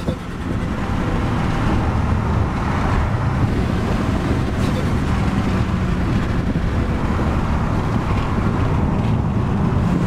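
Turbocharged Citroën DS5 driving on the road, its engine and tyre noise heard as a steady rumble from inside the cabin. The car is on a road test after its turbo wastegate was welded to cure a rattle.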